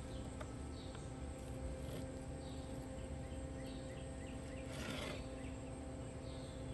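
Knife slicing through a rack of smoked ribs on a wooden cutting board, with a short rasping cut about five seconds in. Faint chirps repeat about once a second over a steady hum.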